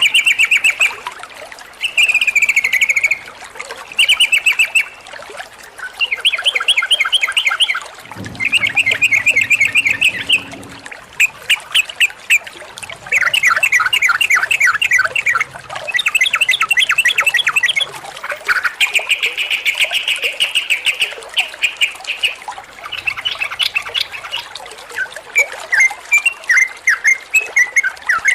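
Sooty-headed bulbul (trucukan) in full song: loud phrases of rapid chattering notes, each a second or two long, separated by short pauses, giving way to scattered single whistled notes near the end.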